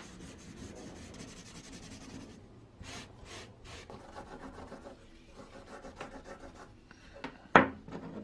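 Grey non-woven abrasive pad scrubbing a bare wooden handle: a quick run of rapid strokes, then three separate slower strokes, then more rubbing. Near the end, one sharp wooden knock as the handle is put down on the wooden workbench.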